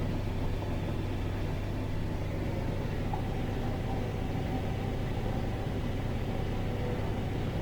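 Combine harvester running while harvesting corn, heard from inside the cab as a steady low drone.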